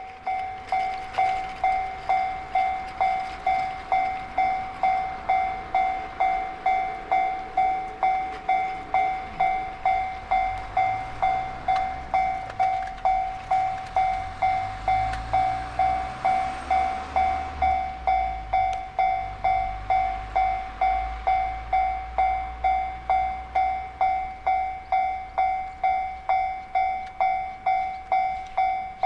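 Railway level-crossing warning bell ringing in an even rhythm, about one and a half strikes a second. Under it, the low rumble of the EF66 electric locomotive and its container freight train builds from about halfway through as the train approaches.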